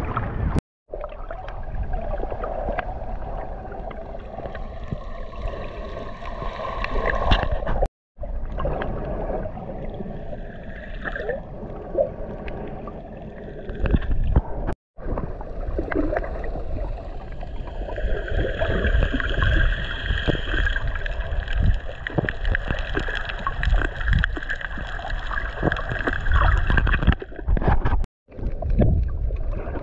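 Water heard with the camera held underwater: a muffled rumble with sloshing and gurgling, broken by brief silent cuts about four times. In the second half a faint steady whine sits above the rumble.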